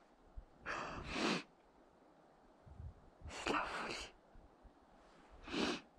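A person's breathing: three short noisy breaths about two seconds apart.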